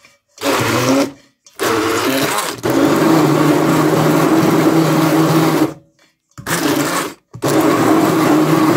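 Hand-held immersion blender running in a stainless steel bowl of cottage cheese, eggs, sour cream and semolina, switched on and off: two short bursts, a run of about three seconds, then two more bursts.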